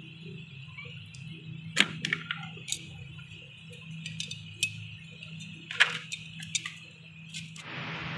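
Steel spanner wrench clicking and clinking against the pivot nut and blades of a pair of tin snips as the nut is tightened by hand: scattered sharp metal clicks, the two loudest about 2 s and 6 s in. Near the end a steady hiss comes in.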